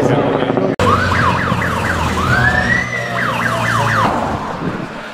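A low engine drone breaks off abruptly under a second in; then a police vehicle's siren sounds in fast up-and-down yelp sweeps, slows into one long wail, yelps again and stops about four seconds in, with engine noise beneath. The siren marks police outriders clearing the road ahead of the racing cyclists.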